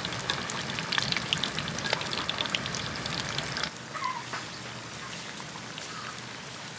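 Battered shark pieces deep-frying in a wok of hot oil: a dense crackling sizzle with many sharp pops, dropping abruptly to a quieter, steadier sizzle about three and a half seconds in.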